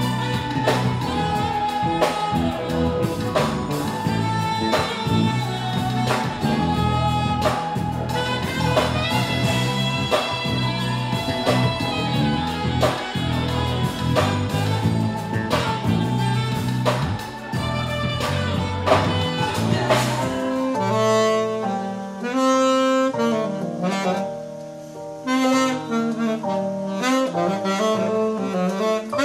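Saxophone playing an R&B melody live over a drum kit and deep bass, with regular drum hits. About 20 seconds in the drums and deep bass drop away, leaving the saxophone's sustained notes over a lighter accompaniment.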